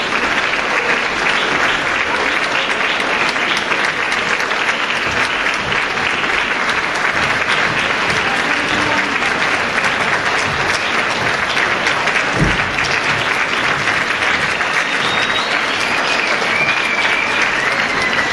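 Concert audience applauding steadily, with a single low thump about twelve seconds in and a faint wavering high tone near the end.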